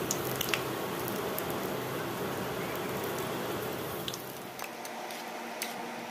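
Mango fritter batter deep-frying in hot oil in a karahi: a steady sizzle with a few sharp clicks and pops. The sizzle eases slightly after about four seconds.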